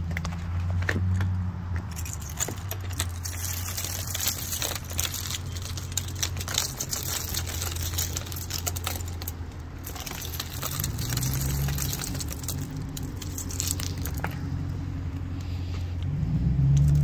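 Clear glaze ice on a wooden deck railing being broken and brushed off by hand, with many small, sharp clicks and tinkles of ice shards, under a steady low rumble.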